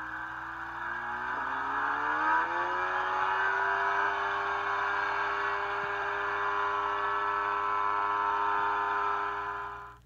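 A light aircraft's engine and propeller running, rising in pitch and getting louder over the first few seconds, then holding steady at a higher speed.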